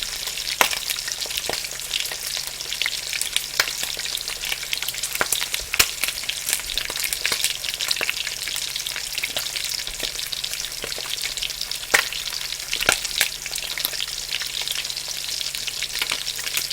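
Food frying in a hot frying pan: a steady sizzling hiss with frequent crackling pops of oil, a few of them louder.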